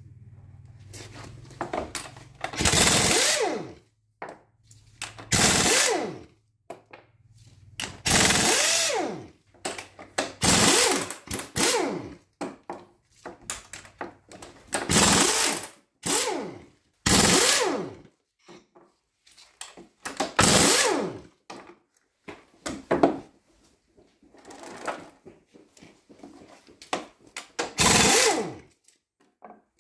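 Air-powered wrench run in short bursts of about a second each, speeding up and slowing within each burst, undoing the connecting-rod big-end caps on a Gardner 6LXB diesel engine's crankshaft. There are light metal knocks in between.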